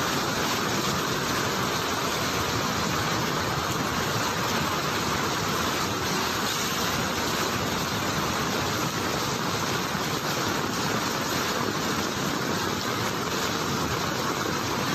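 Steady rushing of fast-flowing floodwater: an even, unbroken noise.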